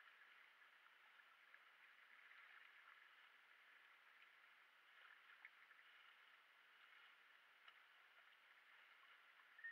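Near silence: very faint water sounds against a kayak hull, with a few light ticks.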